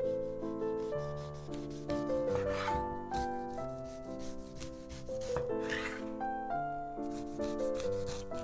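A kitchen knife slicing through whole tomatoes on a wooden cutting board: three half-second scraping cuts, about 2.5 s, 6 s and near the end, over light background music.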